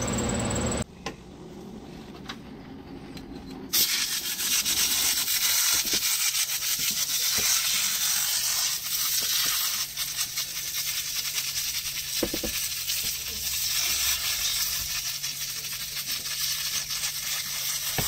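Aerosol can of expanding-foam coil cleaner spraying through its injector nozzle into the fins of a heat pump coil: a steady hiss that starts about four seconds in and wavers a little as it runs.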